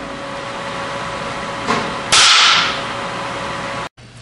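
A Magnetform capacitor bank discharging 3.2 kJ through a single-turn shearing coil: a faint click, then one loud sharp bang about two seconds in as the aluminium blank is driven into the die and sheared. A steady electrical hum sits under it.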